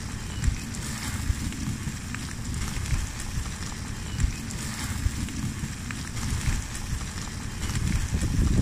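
Wood fire crackling in the firebox of a stove under a cauldron, over a steady low rumble.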